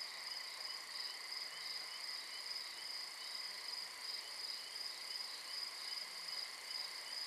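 Night insects, crickets, chirping steadily: a continuous high pulsing trill with a fainter, lower chirp repeating a few times a second.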